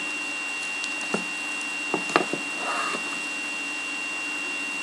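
A few light clicks and taps and a brief rustle from trading cards being handled, over a steady electrical hum with a constant high-pitched whine.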